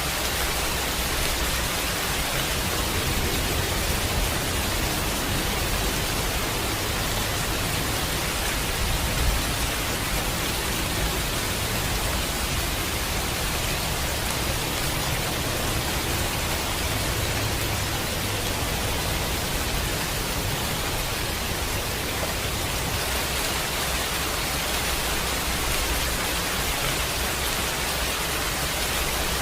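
Steady heavy rain, a dense even hiss, with a low rumble underneath that eases off about two thirds of the way through.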